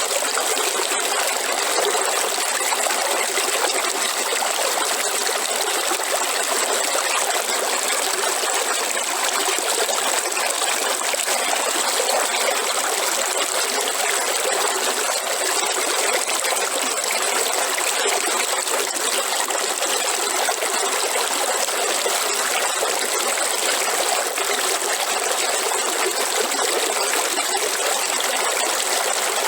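River water flowing over stones in a steady rushing and trickling, even throughout with no pauses or changes.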